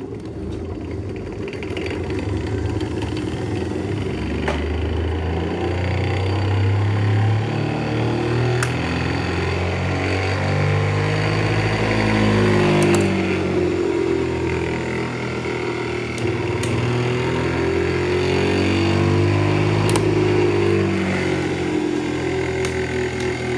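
Electric drive motor and the belt-driven 7.5 hp three-phase motor working as an alternator, switched on and running up. The set runs with a loud hum that builds over the first few seconds, and its pitch keeps wavering up and down.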